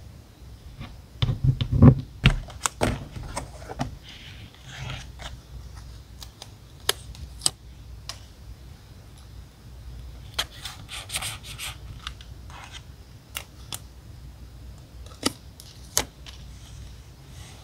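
Stationery being handled on a desk for diary decorating: scattered light taps, clicks and short rustles, with a cluster of louder knocks about two seconds in.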